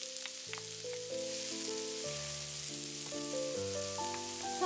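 Chopped onion sizzling in hot olive oil and butter in a frying pan as it is stirred with a spatula, a steady hiss. Background music with a simple melody runs underneath, its notes changing about twice a second.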